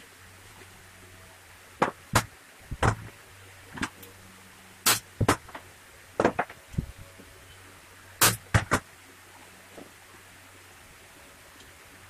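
Sharp knocks and clicks of MDF parts and a cordless drill being handled on a workbench: about a dozen short strikes, some in quick pairs, with pauses between.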